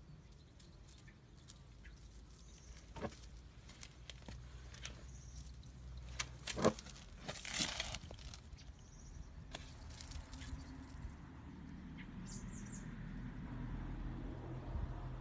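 Quiet outdoor background with scattered clicks and taps and a louder rustle about eight seconds in as the phone is swung about: handling noise from the phone filming. Faint short high chirps come through now and then.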